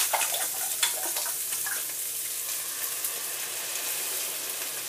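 Mushrooms, garlic and spinach frying in butter and olive oil in a hot pan: a steady sizzling hiss, with a few sharp clicks in the first second.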